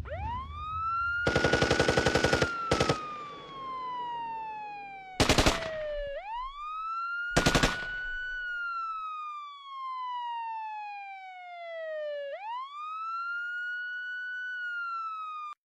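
A siren wails, its pitch rising quickly and sinking slowly three times. A rapid burst of automatic gunfire comes about a second in, with two more short bursts of shots around five and seven seconds in.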